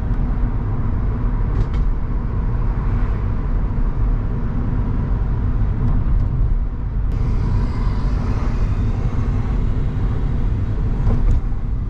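Steady engine and road rumble of a moving car, heard from inside the cabin. A higher tyre hiss joins about seven seconds in.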